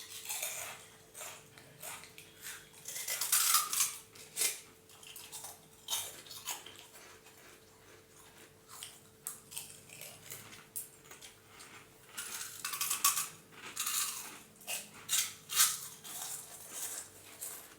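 Kitchen utensils and dishes clinking, knocking and scraping in scattered bursts over a faint steady hum.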